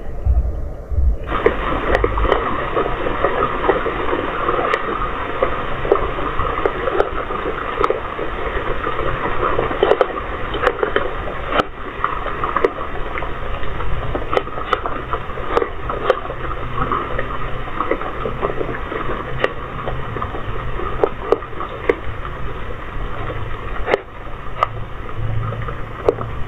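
Steady hiss with many scattered clicks and crackles: night-time outdoor ambience picked up by a CCTV camera's microphone. It jumps in character about a second in, where the footage is cut.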